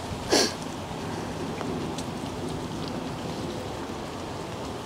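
Steady rain falling, with one brief rising swish about a third of a second in, the loudest sound.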